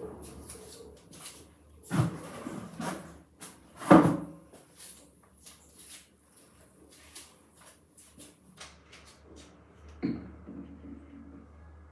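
A few sharp knocks and bumps, the loudest about four seconds in, with light clicks of handling between them; near the end, toiletry bottles knocked and moved on a bathroom counter. A steady low hum runs underneath.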